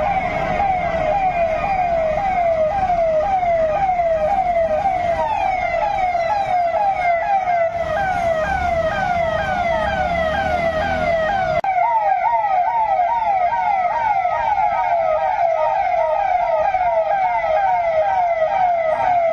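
Police vehicle's electronic siren wailing in a fast repeating cycle, each tone rising and then dropping back sharply, about two or three times a second. A low rumble underneath stops abruptly about two-thirds of the way through.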